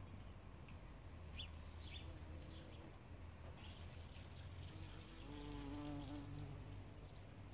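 Bumblebee buzzing as it flies among flowers: a quiet hum that comes and goes, loudest for about a second some five seconds in.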